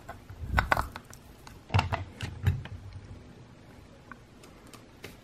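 Light clicks and knocks from hands handling the metal housing and field core of a Singer 101 sewing machine's potted motor: a short cluster about half a second in and another around two seconds in, then only a few faint ticks.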